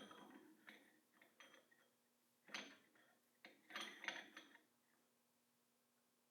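Faint clinks and knocks of metal tools and parts being handled, in a few short clusters, over a faint steady hum.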